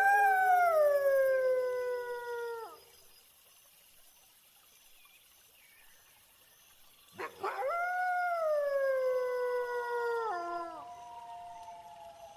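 Wolves howling: a long howl that rises sharply and then slides slowly down in pitch, a pause of about four seconds, then another howl about seven seconds in, overlapped near the end by a second, lower howl. Faint crickets chirp steadily underneath.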